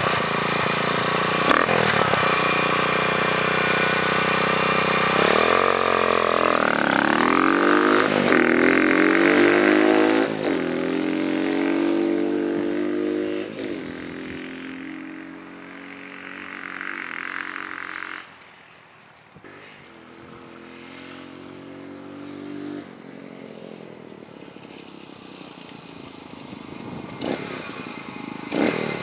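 Honda-clone 150cc single-cylinder four-stroke engine in a Yamaha IT175 dirt bike. It runs close by, then its revs rise and fall repeatedly as the bike pulls away. It fades into the distance, is faintest about two-thirds of the way through, and grows louder again near the end as the bike comes back.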